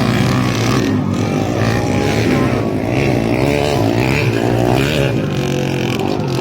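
Several motocross motorcycles running on the track, their engines revving up and down so the pitch keeps rising and falling, over a steady low drone.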